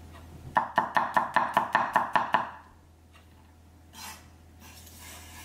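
Santoku chef's knife mincing garlic on a wooden cutting board: a quick, even run of about ten chops, roughly five a second, that stops about two and a half seconds in.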